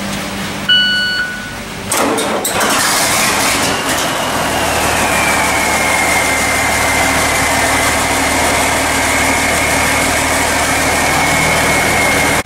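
A short electronic beep, then an engine starts about two seconds in, flares and settles into a steady idle with a high whine.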